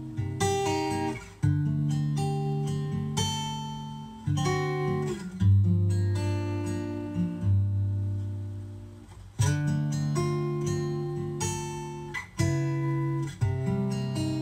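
Acoustic guitar music, an instrumental passage of a ballad played back through a Harman Kardon Go Play Bluetooth speaker: strummed chords and plucked notes that ring out and fade between strokes.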